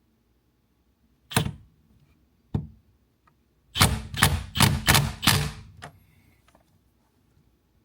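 Ratchet wrench tightening the steering wheel's center bolt on a Mustang GT, clicking in short bursts: one stroke a little over a second in, another about two and a half seconds in, then a quick run of about five strokes.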